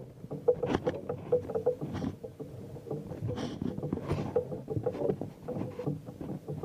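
Small waves slapping and lapping against a boat's hull, with many irregular small knocks and splashes.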